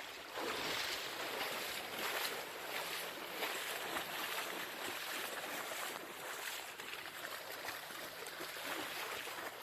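Steady splashing and sloshing of shallow floodwater as dogs run through it and a person wades through it.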